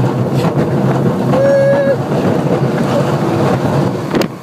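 Roller coaster train running along the track: a loud steady rumble with wind buffeting the microphone, and a short high steady tone about a second and a half in.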